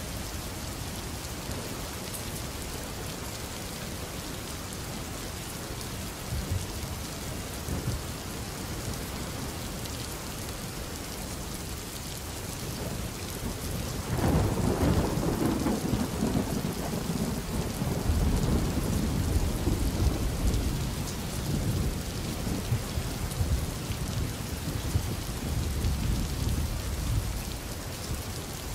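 Steady rain, with a long rolling rumble of thunder that comes in about halfway through and swells and fades in waves.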